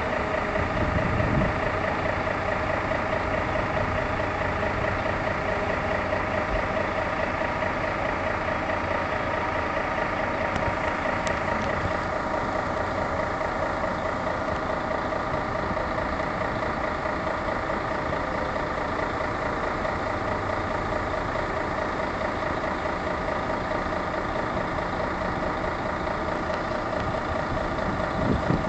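Heavy truck-mounted diesel engine running steadily, a constant drone with a slight warble; about twelve seconds in the higher hiss fades.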